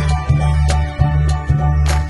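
Upbeat background music with a pulsing bass and a steady beat, about two beats a second.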